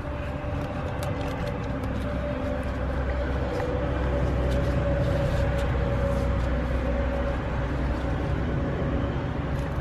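A vehicle engine running steadily nearby: a low rumble with a steady hum over it, swelling a little through the middle and easing toward the end, with faint scattered clicks.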